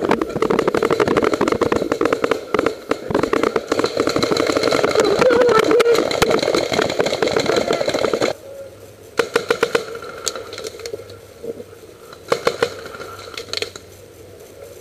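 Paintball markers firing in rapid strings of shots, dense for about eight seconds. The sound then drops off suddenly, leaving a few short bursts of shots.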